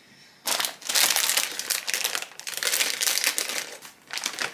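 Thin plastic crinkling and rustling as it is handled, starting about half a second in and carrying on in a dense, crackly stream.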